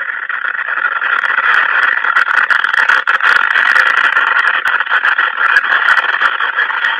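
Loud, steady hiss from a surveillance camera's built-in microphone, with scattered crackles and clicks starting about a second in.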